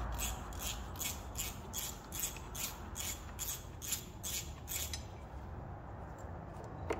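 Even hand strokes scrubbing or scraping a metal grinder part clean, about two and a half strokes a second, stopping about five seconds in. A single sharp knock near the end.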